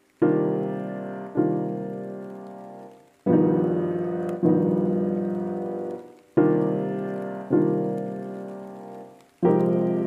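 Background music of slow piano chords, struck in pairs about a second apart, each ringing out and fading, with a new pair about every three seconds.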